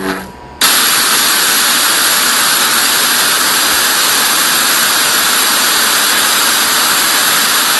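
A loud, steady rushing noise that cuts in suddenly about half a second in and holds unchanged, after a brief pitched cry at the very start.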